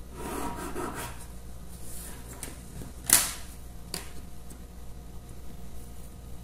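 Pencil scratching on paper along a clear plastic pattern ruler, with the ruler sliding on the sheet and a sharp plastic clack about three seconds in as it is shifted and set down. A few softer taps follow.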